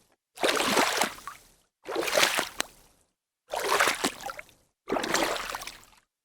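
Water splashing in four separate bursts, each about a second long, with a sudden start, a fade out and a short silence between them.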